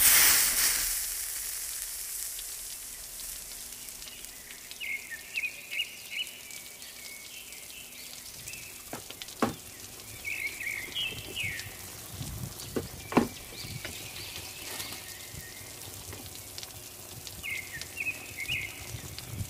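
Tail of the intro music fading out at the start, then quiet handling of a shoebox and sneakers under a steady hiss, with a few sharp clicks or knocks about nine and thirteen seconds in. Three short runs of faint high chirps, like birdsong, come through in the background.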